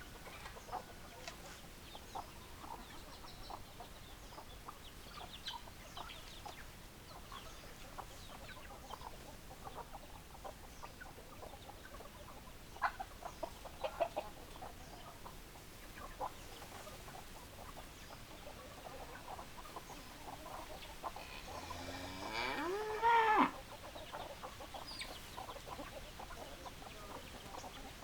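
Chickens clucking, with short calls scattered throughout. About 22 seconds in, one louder, drawn-out call rises and then falls in pitch for about two seconds.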